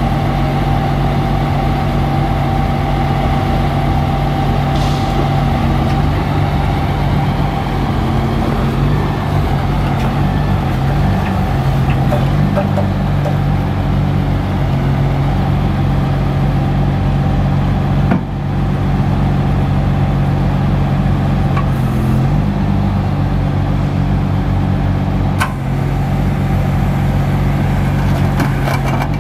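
Caterpillar 3126B inline-six diesel of a crane truck running steadily while the crane is worked from its control station, the engine speed stepping up and down every few seconds. A couple of sharp clicks about 18 and 25 seconds in.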